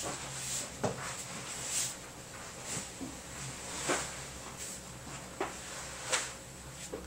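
Half a dozen light knocks and handling clicks, roughly one a second, over a steady electrical buzz in the microphone and amp setup.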